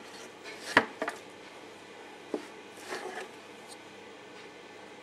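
Freshly cut soap bars and cutting gear being handled: a few sharp clicks and light knocks, the loudest about a second in, with a softer cluster of handling noise near the end.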